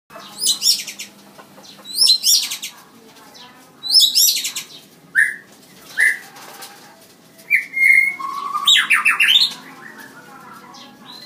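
A caged white-rumped shama singing: short phrases of high whistled notes, many sliding quickly downward, with a few single notes between them, about seven phrases in all.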